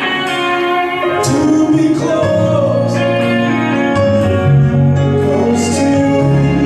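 A worship song playing: singing over sustained instrumental chords and a bass line, the music for a praise dance.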